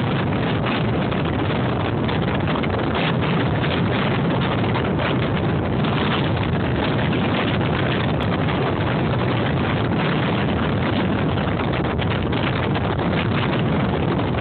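Strong wind blowing across the microphone: a steady, gusty rushing noise.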